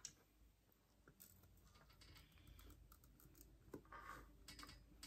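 Near silence: faint rustles and light taps of a hand iron being worked over fabric on an ironing board.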